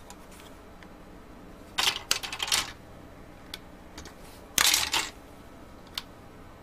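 Hard plastic clicking and cracking as kit parts are snapped out of their moulded plastic frame: a cluster of quick clicks about two seconds in, a louder burst just before five seconds, and a few single ticks between.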